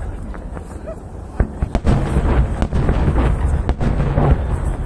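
Aerial firework shells bursting in a rapid series of bangs and cracks over a low rumble. The bangs grow louder and come thicker about a second and a half in.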